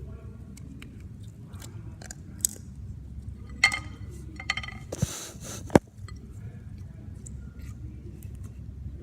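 Slime being squeezed and worked by hand: scattered sticky clicks and small pops, with a few louder snaps around the middle and a brief airy squelch about five seconds in.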